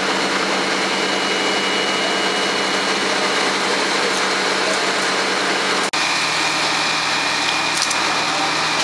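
Fire engine running steadily at the scene: a constant mechanical drone with a thin, steady whine above it. A brief dropout about six seconds in, after which the drone's pitch is slightly different.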